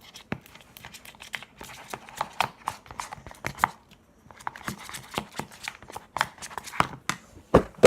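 Homemade slime being worked and mixed by hand, a run of irregular sticky clicks and squelching crackles, with a louder knock near the end.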